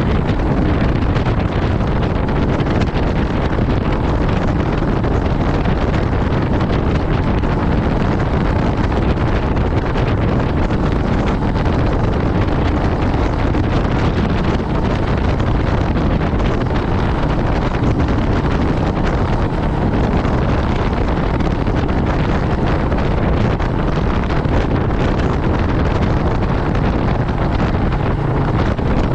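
Wind rushing over the microphone with the steady running of a Royal Enfield Meteor 350 motorcycle's single-cylinder engine and tyre noise at a constant cruising speed.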